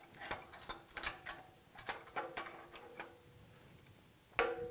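Light metal clicks and clinks from a large adjustable wrench being handled and adjusted, scattered over the first few seconds, with a louder clank near the end.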